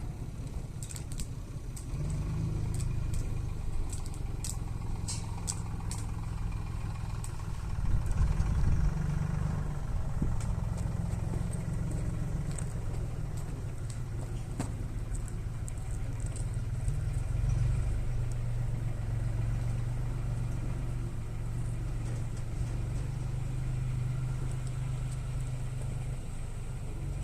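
An engine running steadily at idle, a low rumble that swells louder about eight seconds in, with a few light clicks in the first several seconds.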